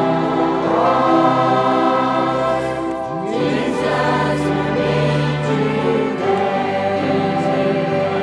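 A church choir singing a gospel hymn together with musical accompaniment, in long held chords.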